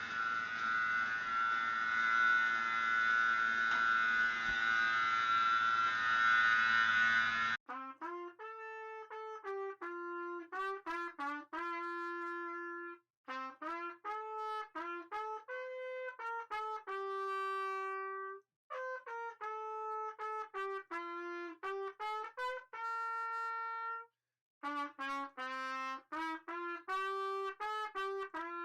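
A steady, noisy mechanical sound runs for about seven seconds and cuts off abruptly. A solo trumpet melody follows, played in four phrases with short breaks between them.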